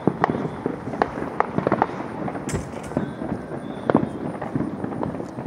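Neighbourhood fireworks and firecrackers going off: a scattered run of sharp pops and bangs, several a second at times, over a continuous background rumble of more fireworks.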